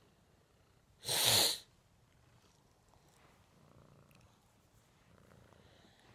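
A single sharp sneeze from a white long-haired cat, a short loud burst about a second in.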